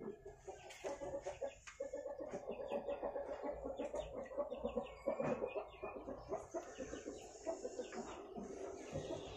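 Chickens clucking: a steady run of short, rapidly repeated clucks.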